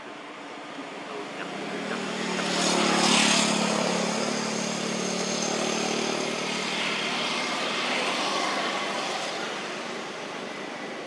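A motor engine passing nearby. It swells to its loudest about three seconds in, then keeps running and slowly fades.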